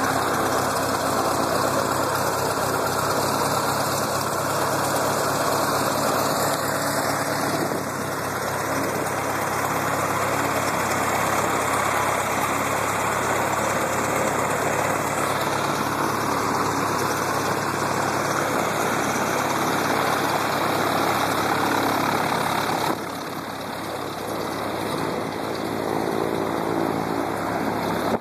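Citabria light airplane's piston engine and propeller running steadily at idle, dropping somewhat in level near the end as the plane taxis off.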